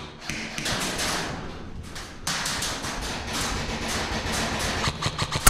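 Distant airsoft gunfire: irregular runs of sharp clicks and taps over a steady hiss, with a short lull about two seconds in and a louder crack near the end.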